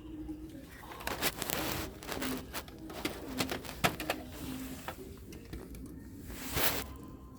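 Sharp clicks and knocks of a vintage Northern Telecom telephone's hard plastic and metal parts being handled, with a burst of rubbing noise near the end. Underneath, a low cooing recurs every second or so, like a pigeon.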